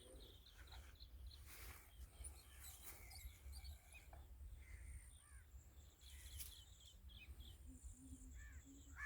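Faint birdsong outdoors: many short chirps and calls from several birds, over a low steady rumble of wind or ambient noise.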